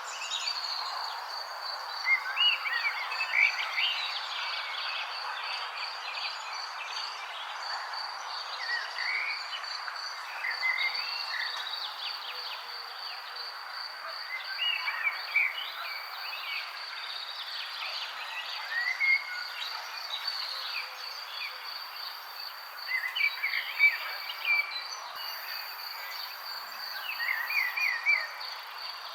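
Wild birds chirping in short, scattered calls over a continuous high, pulsing trill and an even background hiss.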